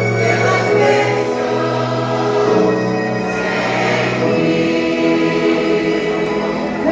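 Gospel vocal group singing a slow worship song in harmony, holding long notes over a sustained low accompaniment.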